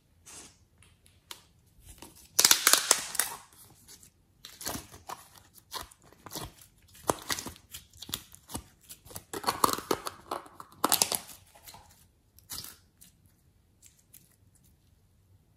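Thin clear plastic cup crackling and crinkling in the hands as a lump of soft green slime is pulled out of it and squeezed, in irregular bursts of handling noise. The loudest crackles come about two and a half seconds in and again about eleven seconds in, and the sound dies away near the end.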